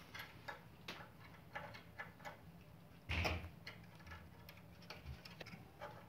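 Hands handling the plastic housing and pipes of an opened split air-conditioner indoor unit: scattered small clicks and taps, with one louder bump about three seconds in.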